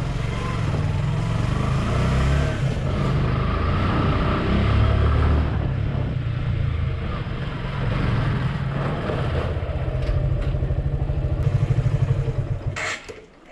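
Motorcycle engine running at low road speed with a steady low throb, its revs shifting now and then; it stops abruptly near the end.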